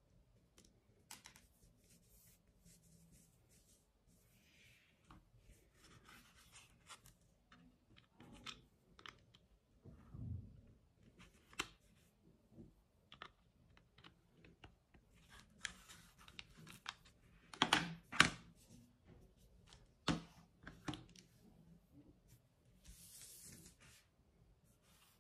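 Faint handling sounds of a small charging cable and its clear plastic wrapping: crinkling and rustling with scattered light clicks and taps. The loudest are two sharp clicks in quick succession past the middle and one more a couple of seconds later, as the plug meets a plastic earbud charging case.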